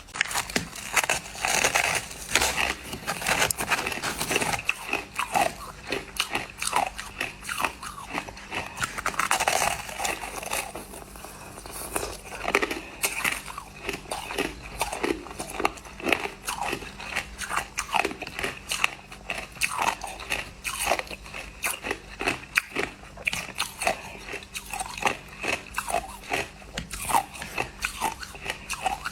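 A person chewing crushed ice with their mouth close to the microphone: rapid, irregular crunching that keeps on without a break.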